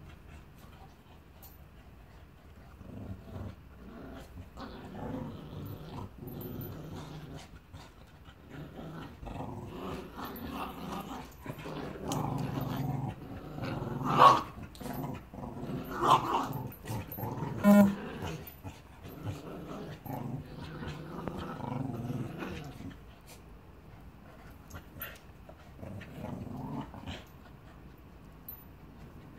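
Two dogs, a Staffordshire Bull Terrier and a Border Terrier puppy, growling on and off as they play-fight, with three short, sharp, louder cries about halfway through.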